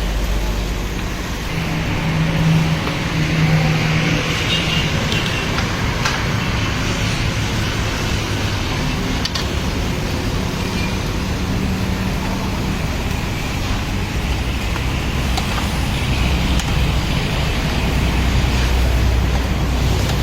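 Street traffic noise: vehicle engines running and passing, with a steady hiss and a few brief clicks.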